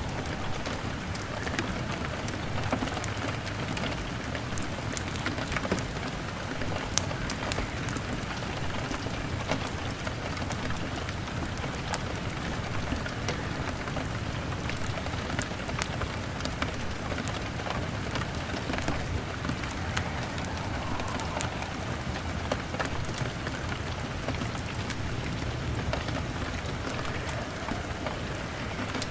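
Steady heavy rain beating on a window pane, mixed with scattered sharp crackles and pops from a burning log fire.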